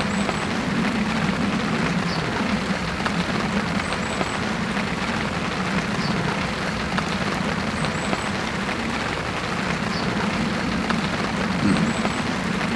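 Steady rain falling, an even hiss of drops without a break.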